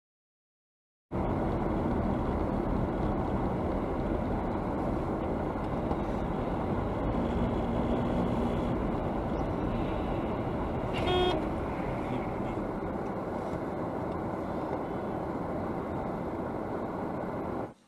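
Steady road and engine noise inside a moving car, starting about a second in, with one short car-horn toot about two-thirds of the way through.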